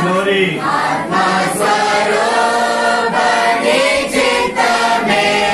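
A group of voices singing a Christian worship song together, with long held notes.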